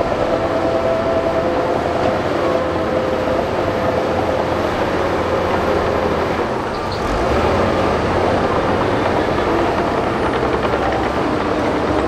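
Heavy crawler bulldozer working: diesel engine running under load with a steady whine from the running gear and tracks. The sound dips briefly about seven seconds in, then picks back up.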